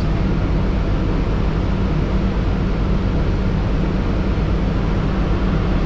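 Transit bus idling while parked, heard from inside the cabin: a steady low engine hum under an even hiss of running air.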